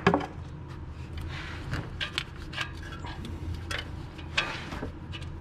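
Scattered clicks and light metallic knocks of hand tools working an oxygen sensor socket on the exhaust, over a steady low hum. The sharpest knock comes right at the start.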